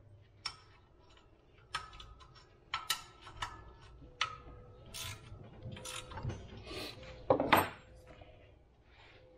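Hand tools and a steel straightedge clinking and knocking on an Eaton self-adjusting truck clutch pressure plate as its adjustment is reset: a series of separate metal knocks, some with a short ring, the loudest clatter about seven and a half seconds in.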